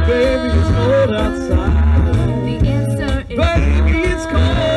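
A cappella vocal group singing live into microphones: a male lead and female voices in harmony over a deep sung bass line.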